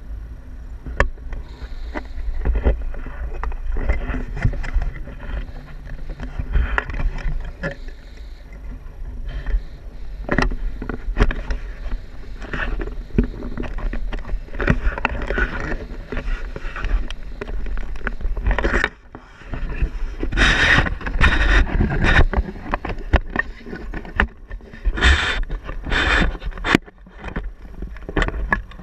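Wind buffeting an action camera's microphone in flight on a tandem paraglider: a steady low rumble with louder gusts of rushing noise, mixed with frequent clicks and rubbing from the hand-held camera pole.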